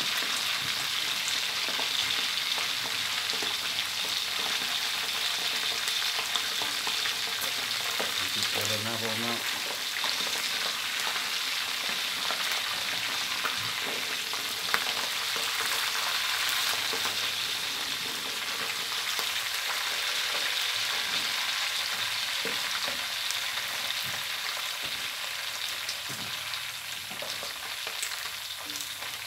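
Pieces of fermented sour fish (pla som) deep-frying in a wok of hot oil: a steady sizzle, with scattered clicks and scrapes of a metal spatula turning the fish against the wok. The sizzle softens a little near the end.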